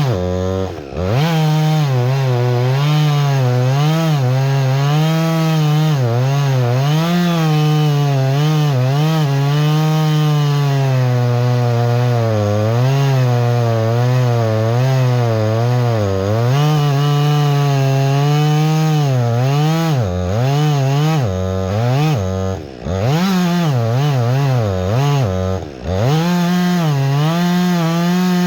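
Husqvarna 562XP two-stroke chainsaw running under load while cutting wood, its engine pitch wavering as the chain bogs and recovers in the cut. The throttle drops briefly about a second in and twice near the end.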